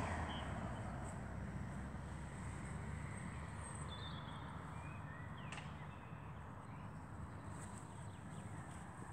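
Quiet outdoor ambience: a steady low rumble, fading a little in the first second, with a few faint, short bird chirps.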